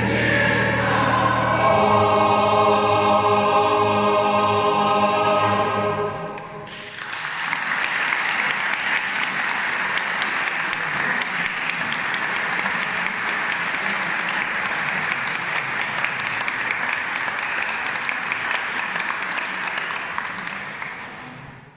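A choir holds a final chord that cuts off about six seconds in, followed by steady audience applause that fades away near the end.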